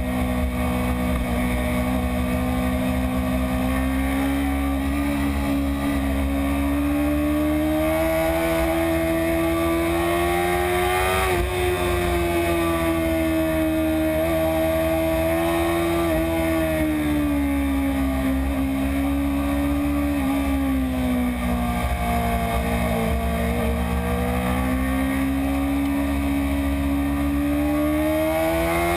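BMW S1000RR's inline-four engine running steadily at mid revs. Its pitch rises gently to a peak about ten seconds in, sags later on and climbs again near the end, over a constant low rumble of wind.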